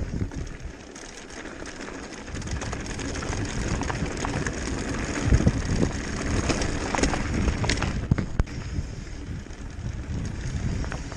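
Mountain bike rolling fast down a loose gravel and rock track: tyres crunching and the bike rattling and clicking over the stones, with a low wind rumble on the microphone. It gets louder from about two seconds in as speed picks up.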